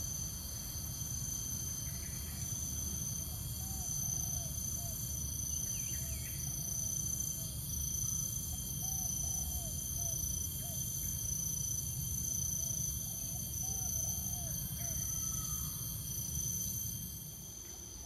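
Tropical insects shrilling steadily in several high tones, with soft short chirping calls coming and going over a low steady rumble.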